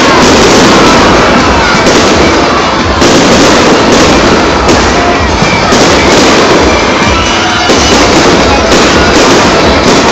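Fireworks display: aerial shells bursting and crackling one after another in a dense, unbroken barrage.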